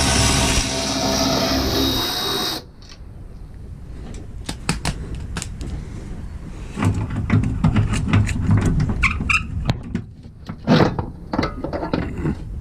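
Impact wrench spinning suspension bolts, a loud run that cuts off suddenly after about two and a half seconds. Metal clanks follow, then a second rapid hammering run of the tool from about seven to ten seconds, and a few more knocks near the end.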